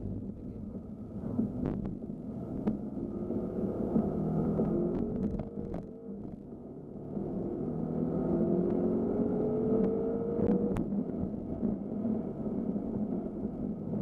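BMW M5 F10's twin-turbo V8, heard from inside the cabin, pulling hard with its pitch rising twice and a brief easing-off about six seconds in between. A few faint clicks sound over the engine.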